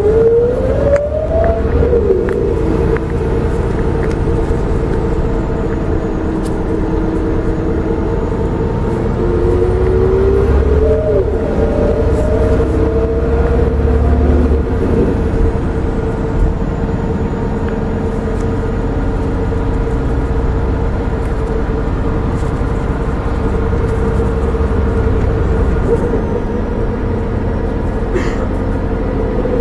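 Volvo B7R coach heard from inside the cabin while driving: its rear-mounted Volvo D7C six-cylinder turbo diesel runs with a low rumble and a steady whine. Twice, about a second in and again around ten seconds, a whine rises in pitch and then drops back as the ZF Ecomat six-speed automatic gearbox shifts up.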